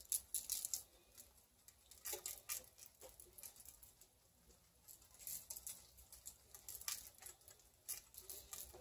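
Ground black pepper shaken from a glass shaker jar over a raw turkey: faint, short bouts of shaking, repeated several times a few seconds apart.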